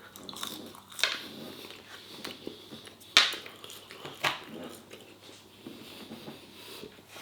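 A person eating close to the microphone: soft chewing and mouth sounds, with three sharp clicks about one, three and four seconds in.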